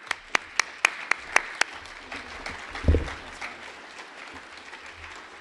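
Audience applauding: a few loud, sharp claps close by over the first second and a half, then steady clapping from the whole crowd. A dull thump sounds about three seconds in.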